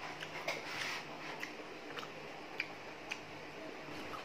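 Chewing mouth sounds: faint scattered clicks and smacks, a few to the second, over a quiet room.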